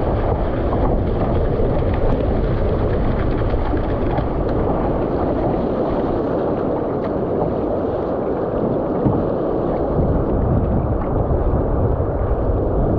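Water rushing and splashing along the hull of an Epic V7 surfski as it runs on a wave, mixed with wind buffeting the microphone. The noise stays steady and loud throughout.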